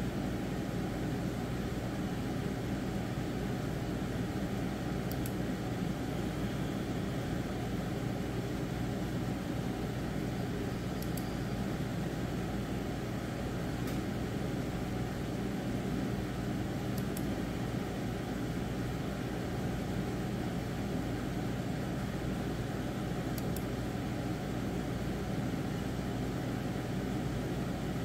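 Steady mechanical hum and hiss, with faint high ticks every few seconds.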